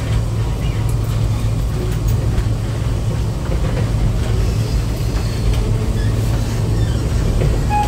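Tram running, heard from inside the passenger car: a steady low rumble of the ride on the rails.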